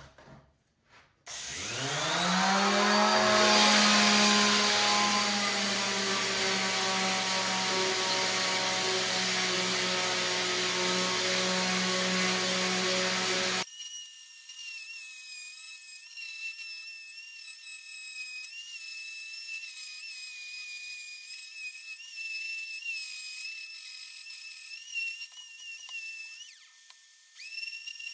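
Electric sander with 80-grit paper on a wooden panel, its motor spinning up about a second in and then running steadily. About halfway through the sound changes abruptly to a thinner, higher whine whose pitch wavers.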